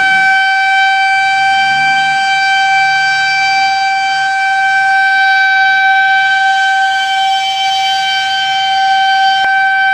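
Ambulance siren sounding one loud, steady tone.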